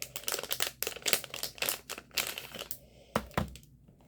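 Plastic packaging crinkling with irregular crackles and small clicks as it is handled and opened.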